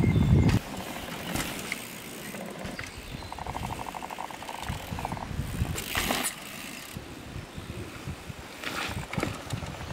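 Mountain bike on a dirt pumptrack, with the tyres rolling and scrubbing over the dirt. The rear hub's freewheel buzzes with rapid, even clicks for about two seconds as the bike coasts past close by. There is a short low rumble at the very start.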